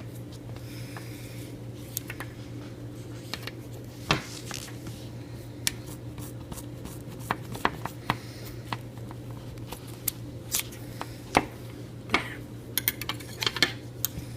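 Scissors snipping off the excess paracord ends, heard as scattered short clicks and snips with handling noise, over a steady low hum.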